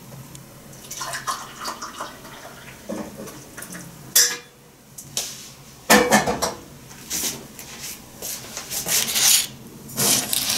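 Crockery clinking and knocking as a mug and a clay teapot are handled and set down on a table, in a string of separate clatters, the loudest about four and six seconds in.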